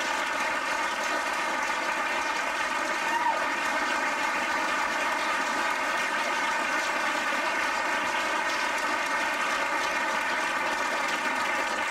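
Audience applauding steadily: many hands clapping in a continuous even wash of sound.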